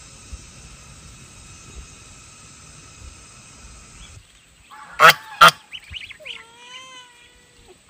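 White domestic goose honking twice, loud and short, about five seconds in, then giving softer, drawn-out calls that glide in pitch. Before that a steady high drone runs and cuts off about four seconds in.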